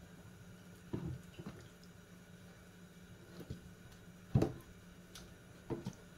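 Raw chicken drumsticks being dropped one at a time into a plastic bowl of wet flour batter: a handful of soft thuds and squishes, the loudest a little over four seconds in, over a low steady hum.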